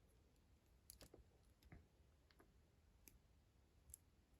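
Near silence with a handful of faint, scattered clicks of small LEGO plastic pieces being handled.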